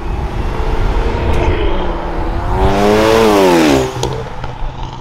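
Car engine revving hard as a car pulls away, the pitch climbing to a peak about three seconds in and falling back, over a steady low engine rumble.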